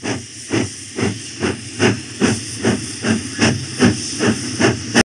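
Steam locomotive pulling away from a station: regular exhaust chuffs, about two and a half a second, over a steady hiss of steam. The sound cuts off suddenly near the end.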